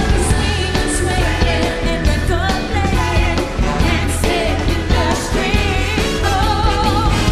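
Female pop vocal trio singing live over a band of drums, electric guitars and bass, with a steady beat.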